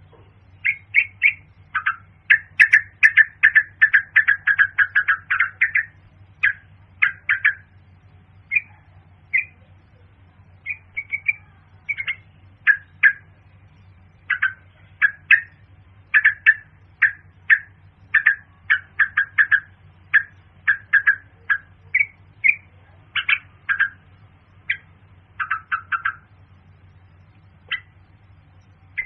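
Yellow-vented bulbul calling: a fast run of short, loud chirping notes in the first few seconds, then shorter groups of notes with gaps between them, over a faint steady low hum.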